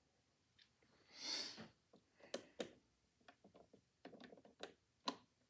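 Faint small metal clicks and ticks of needle-nose pliers working at a phonograph motor, pulling out a broken piano wire, with a short soft hiss about a second in.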